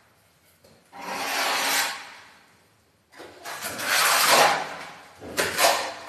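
Trowel scraping fine finishing mortar across a wall: three separate scraping strokes, the second the longest and loudest, with short pauses between.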